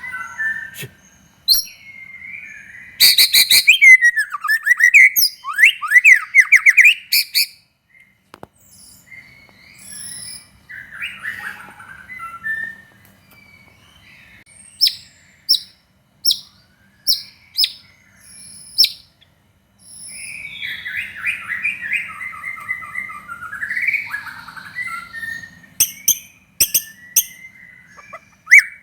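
White-rumped shama singing a varied song: a loud run of rapid, rattling notes, softer warbling phrases, a string of sharp falling whistles about one a second, and more chattering near the end, with short pauses between phrases.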